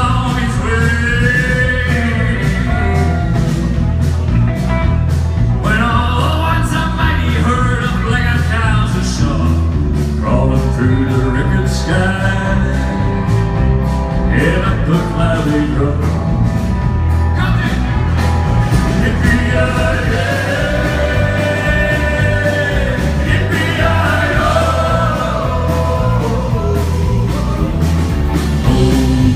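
Live rock and roll band playing: a male singer over guitars and drums with a steady beat.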